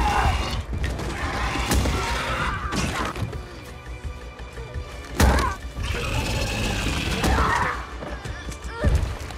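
Battle-scene soundtrack: dramatic music under several loud crashes and impacts, the loudest about five seconds in.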